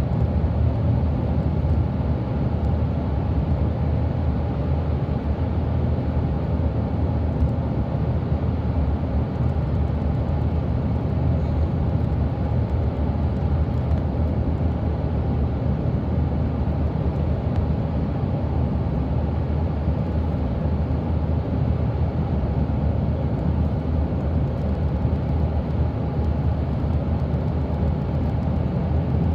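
Cabin noise inside a Volvo 8500 articulated bus cruising at highway speed: a steady low engine drone mixed with tyre and road noise, unchanging throughout.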